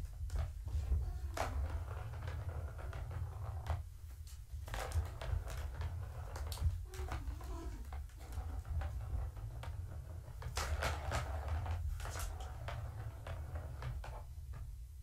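Kittens batting a Catit trackball toy: its ball rattling and rolling round the plastic track, with scattered clicks and knocks, over a steady low hum.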